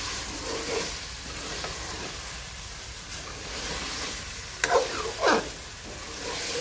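Chicken pieces frying in thick onion-tomato masala in a wide metal pan on a high flame, sizzling steadily while a long metal spoon stirs and scrapes through them. This is the bhunai stage of a desi chicken curry. Two louder scrapes of the spoon against the pan come about five seconds in.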